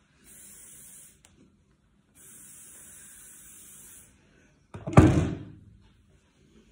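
Aerosol hairspray can spraying in two steady bursts, the first about a second long and the second about two seconds, followed about five seconds in by a single loud thump.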